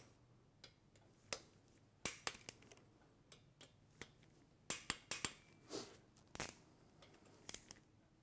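Torque wrench clicking and ratcheting in short irregular runs as the cam-belt tensioner adjuster bolts on a Ducati two-valve engine are tightened to 25 newton metres, with a few metallic clinks of the tool against the engine.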